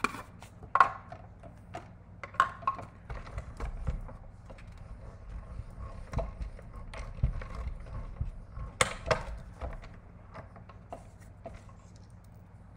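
Clicks and taps of small metal dies and acrylic cutting plates being set on a hand-cranked die-cutting machine, then a low rumble from about three seconds in as the handle is turned and the plate sandwich rolls through the rollers. A sharp clatter of plates being handled comes near nine seconds.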